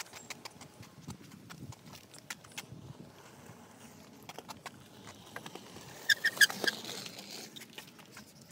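Fast, irregular clatter of clicks and taps from a kick scooter's small wheels on concrete. A quick run of short high chirps comes about six seconds in.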